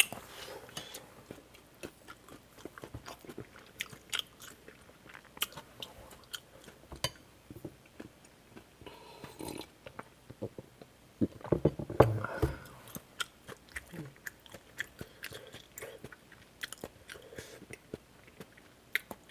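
Close-up mouth sounds of a person eating kimchi stew: chewing and biting, with many small wet clicks and a louder cluster of sounds about two-thirds of the way through.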